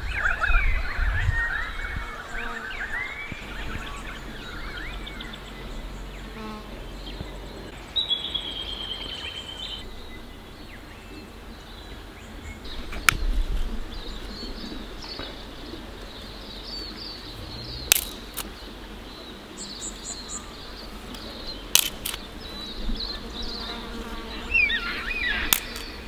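Birds calling and chirping in the bush, loudest in the first few seconds and again near the end. In between come a few sharp clicks and snaps as a steel fire pit is lit with a gas lighter and firelighter and twigs are laid on.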